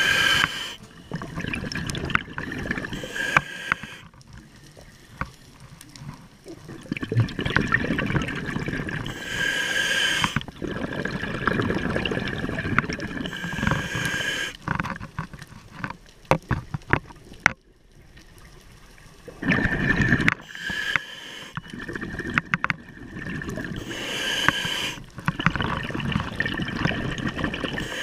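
Scuba diver breathing through a regulator underwater: stretches of bubbling, gurgling exhaled air alternate with quieter gaps in slow breathing cycles. Scattered small clicks are heard about halfway through.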